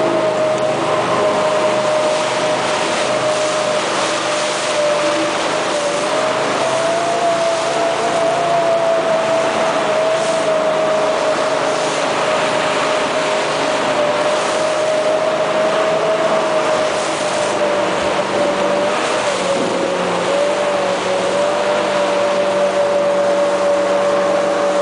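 Jetboat engine and water jet running steadily at speed, a continuous whine that wavers slightly in pitch, over the hiss of rushing river water.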